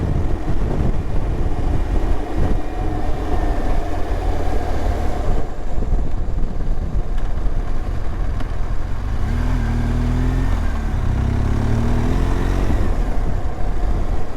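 BMW R1200GSA adventure motorcycle's boxer-twin engine running at road speed, with wind and road noise on the rider's microphone. About two-thirds of the way in the engine note climbs as the bike accelerates, dips once, then climbs again.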